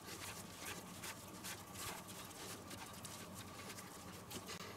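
Hands kneading sticky pizza dough on a floured wooden cutting board: a faint, irregular run of soft pats and presses.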